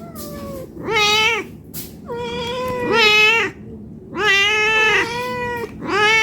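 Domestic cat meowing over and over, about four meows in quick succession, each rising then falling in pitch and some drawn out. This is a hungry cat begging for food.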